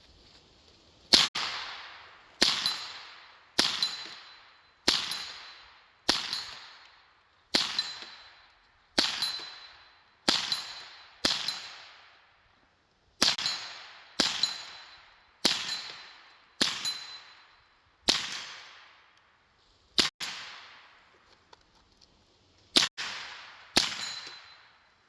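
An AR-15 with a CMMG .22 LR conversion kit firing about seventeen single shots, roughly one every second or so in a steady rhythm. There is a longer pause near the end before two more shots. Each report echoes briefly, and most are followed by a short high ring.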